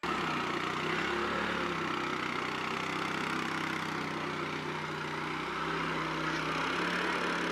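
Small single-cylinder petrol engine of a homemade tracked vehicle running steadily under load as it drives the chain tracks.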